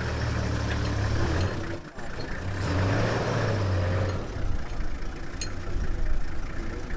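Safari vehicle's engine idling, a steady low hum that drops out briefly about two seconds in.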